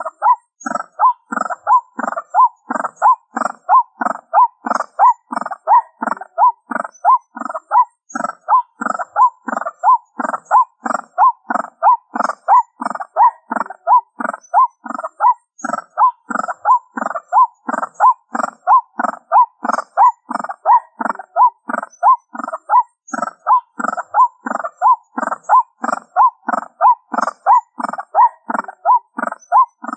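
White-breasted waterhen calling: an unbroken run of repeated 'ruak' notes, about two a second.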